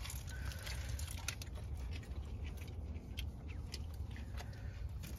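A person eating a foil-wrapped wrap: scattered short crinkles of aluminium foil and chewing over the steady low rumble of a car's cabin.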